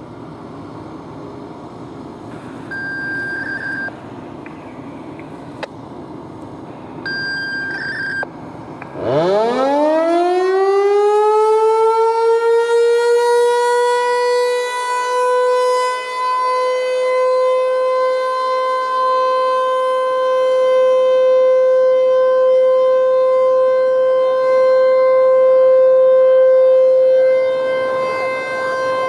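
T-128 outdoor warning siren winding up about nine seconds in, its pitch climbing quickly and then holding as a loud steady tone: the start of the steady alert signal of a scheduled siren test. Before it, two short electronic beeps sound over background noise.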